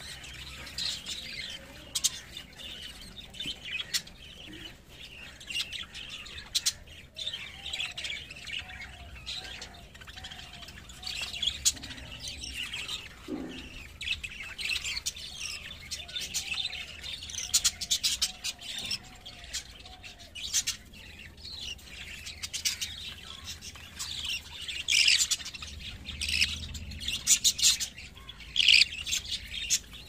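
Budgerigar chicks chirping and squawking: a busy, irregular stream of short high calls, louder in the last few seconds.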